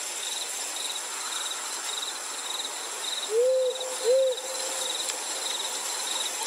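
Night ambience: crickets chirping in a steady, even rhythm, with an owl hooting twice about halfway through, each hoot rising and falling in pitch.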